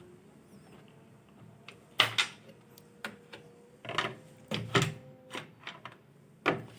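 A few scattered sharp clicks and knocks of hard parts and tools being handled during a washing machine repair: two about two seconds in, a cluster a little past the middle, and one more near the end.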